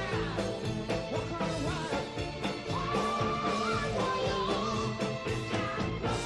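A rock band plays with a male lead singer, his voice over drums, bass and keys; he holds a long sung note about halfway through.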